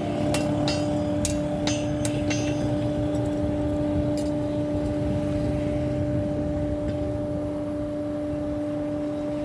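About six quick hammer blows on metal in the first two seconds or so, then a single faint one later, over a steady low hum.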